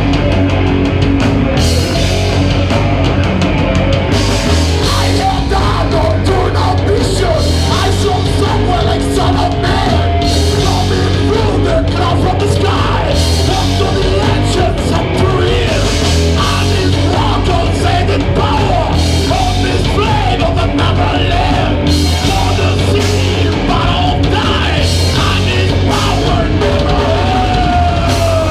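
Live heavy metal band playing loud: electric guitars, bass and drum kit, with yelled vocals.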